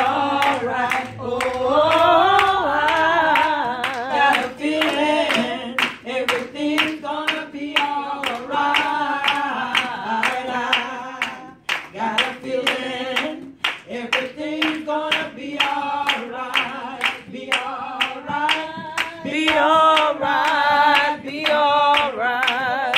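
A gospel song sung by a group of women, with steady hand-clapping in time with the beat.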